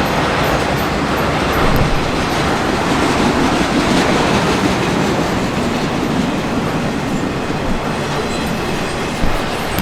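Railcars of a passing train rolling steadily over the rails, with a brief louder hit near the end.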